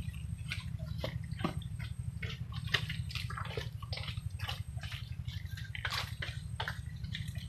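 Wet mud squelching and sucking as hands dig through it and boots shift in it: a quick, irregular run of small wet clicks and squishes over a steady low rumble.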